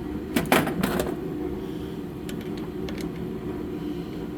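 Sharp clicks and knocks of hand tools against metal pump parts, loudest in a quick cluster about half a second to a second in, with a few lighter ticks later, over a steady low hum.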